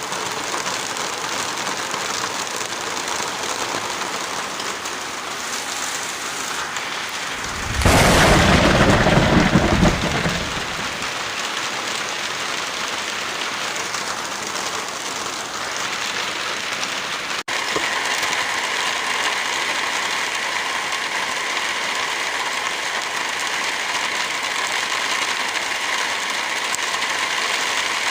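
Heavy rain falling steadily, with a loud clap of thunder about eight seconds in that rumbles for a couple of seconds. Past the middle the sound cuts out for an instant and the rain resumes a little louder.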